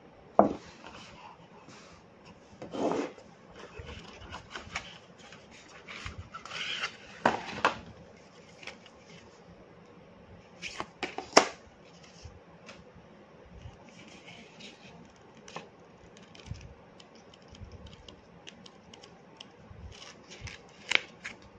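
Cardboard phone box and its paper inserts being handled: the lid sliding off, paper and card rustling and scraping, and scattered clicks and taps. A few sharp knocks stand out, the loudest just after the start and about eleven seconds in.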